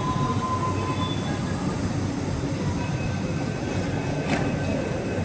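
Metro train running, a steady low rumble with faint high steady tones over it, and one sharp click about four seconds in.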